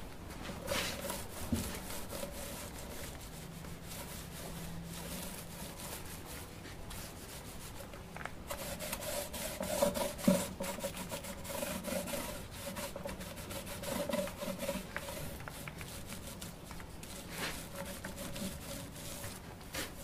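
Paint roller being rolled back and forth over the side of a polystyrene beehive box, a run of uneven rubbing strokes.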